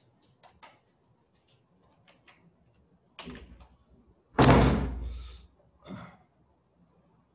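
Faint computer-keyboard keystrokes, then a loud thump about four seconds in with a deep low end that dies away over about a second, followed by a softer knock.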